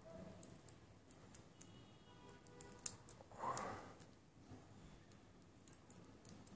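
Faint small clicks from handling a miniature metal M1911 model pistol and its magazine, with one sharper click near the middle followed by a brief rustle.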